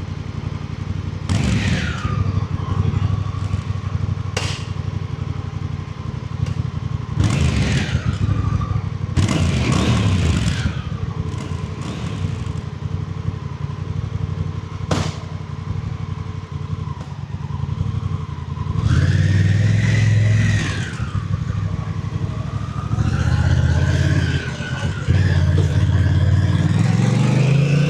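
Honda Rebel 1100's parallel-twin engine on its stock exhaust, idling and being blipped several times, each rev falling quickly back to idle. Later it is held at higher revs twice, and the pitch rises near the end.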